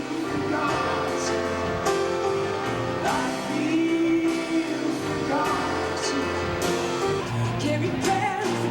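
Live band playing a song with singing, sustained instrument notes and regular drum hits.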